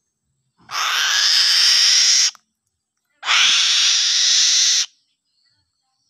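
Young eagle giving two long, harsh screeches, each about a second and a half with a short gap between: a young raptor's begging call while being fed.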